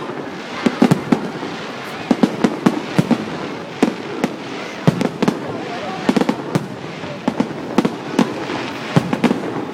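Fireworks bursting overhead: a rapid, irregular run of sharp bangs and pops, several a second, over a steady background of voices.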